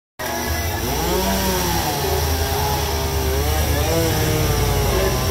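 A power carving tool cutting into wood, its motor running steadily with the pitch rising and falling as it bites and eases off.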